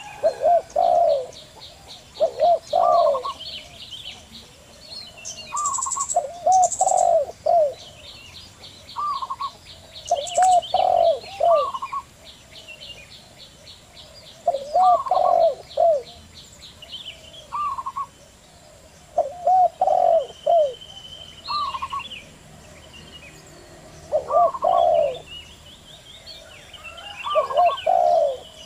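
Wild doves cooing in short repeated phrases of curved, low notes, a phrase about every two seconds. A small bird's rapid, high, ticking trill runs over them for several seconds at a time, with a couple of brief, very high chirps.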